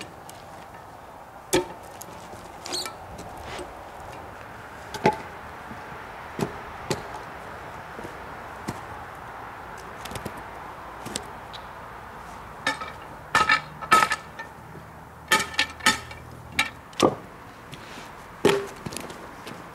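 Scattered sharp knocks and clunks of wood on wood as logs and split blocks are shifted and set down, with a cluster of several quick knocks in the second half.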